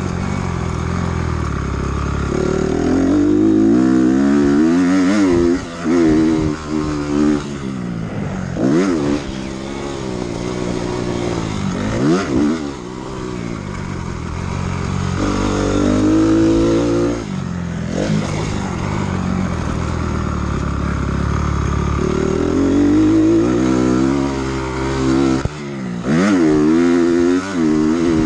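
Honda CRF250R's single-cylinder four-stroke engine being ridden hard, heard from on the bike: the revs climb again and again through the gears and drop sharply each time the throttle is chopped, several times over.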